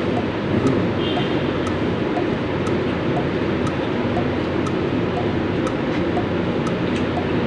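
Steady low background noise, even in level throughout.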